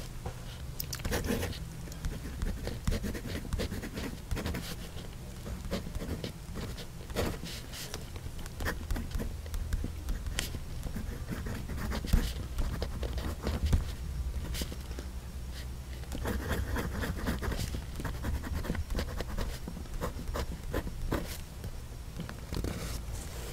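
Gold-plated fine nib of a PenBBS 486 fountain pen writing on paper: a continual run of short, soft scratches as letters and loops are drawn.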